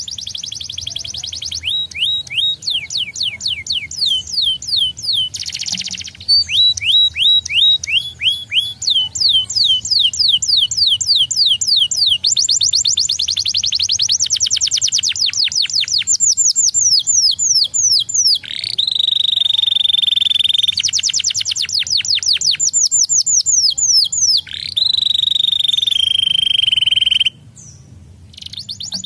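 Domestic canary singing: fast trills of rapidly repeated sweeping notes. Twice, about two-thirds of the way in, the trill gives way to a long, steady, high whistled note. The song breaks off briefly near the end, then the trilling resumes.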